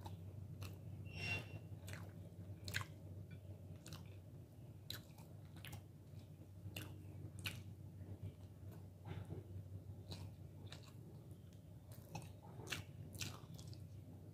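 Close-up chewing of rice and chicken curry, with many irregular wet mouth clicks and smacks.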